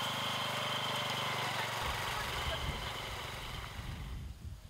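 A small motor hums steadily with a thin high whine. About two seconds in the hum gives way to uneven low rumbling, like wind on the microphone.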